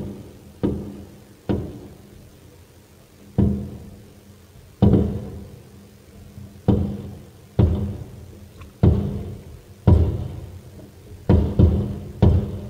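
Aerial firework shells bursting overhead: about a dozen loud, irregularly spaced booms, each trailing off in a rumbling echo.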